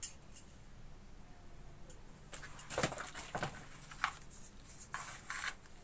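A few faint, scattered clicks and knocks of kitchenware being handled, in a cluster about halfway through and again near the end.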